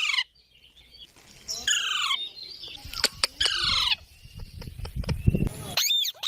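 Pet rose-ringed parakeet (Indian ringneck) giving harsh, screechy calls, two strong ones about two seconds apart and a shorter one near the end, with a few short clicks and a low rustling noise between them.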